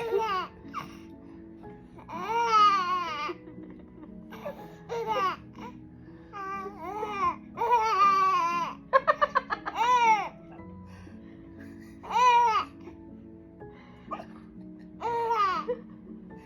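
Baby laughing in short, high-pitched bursts, with a quick run of giggles about nine seconds in, over background music.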